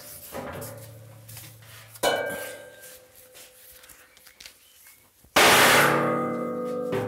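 Two hammer blows on a smoker's 5 mm steel cooking-chamber lid, about two seconds in and again near the middle, the second louder. Each blow leaves the steel ringing and fading away. The blows bend the lid so that it lies flush and parallel to the cooking chamber.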